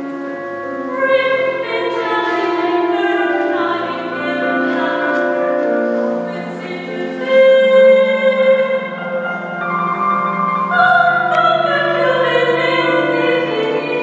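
Mixed choir of men's and women's voices singing sustained chords, with keyboard accompaniment; the singing swells to its loudest about halfway through.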